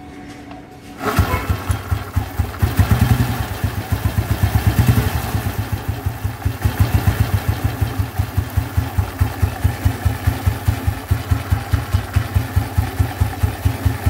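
Royal Enfield Bullet cast-iron 350cc single-cylinder engine firing up about a second in, revving briefly, then idling with an even thumping beat. The primary chain cover is off, so the chain and clutch run exposed.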